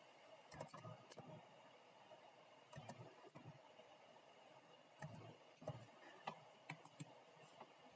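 Faint, scattered clicks of a computer keyboard being typed on, a few at a time with near silence between them.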